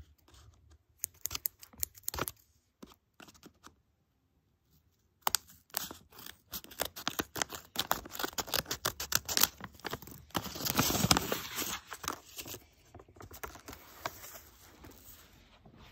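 Scissors snipping through a handmade paper blind bag, then paper crinkling and rustling as the bag is opened and the folded paper slips inside are pulled out. A few snips come at first, then a short quiet gap, then steady snipping and crinkling that is loudest about eleven seconds in.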